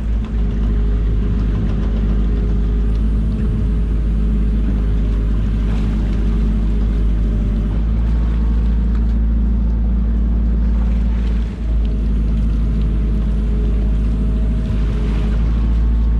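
Fishing boat's engine running steadily with an even, low drone.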